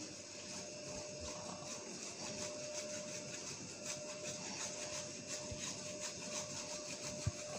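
Block of cheddar cheese being rubbed on a hand grater: quiet, irregular rasping scrapes over a steady faint hum, with a couple of soft knocks near the end.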